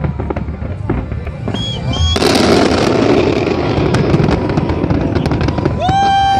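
Aerial fireworks bursting: a rapid string of sharp bangs and pops, then from about two seconds in a dense, continuous crackling hiss as many shells and cascades go off at once. Near the end a steady pitched horn-like tone starts.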